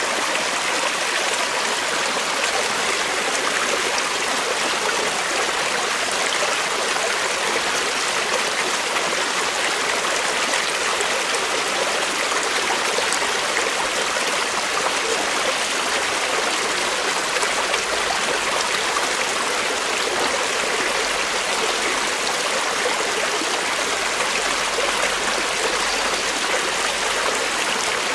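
Creek water flowing over rocks in a steady, even rush with fine trickling detail.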